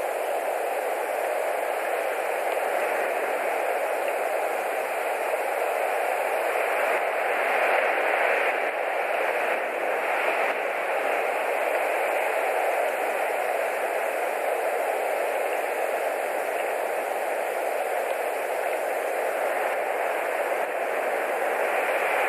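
A steady hiss with no distinct events, swelling slightly about eight seconds in.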